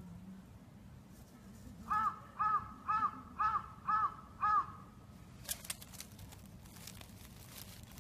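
A bird calling six times in a row, about two calls a second, each call rising and falling in pitch.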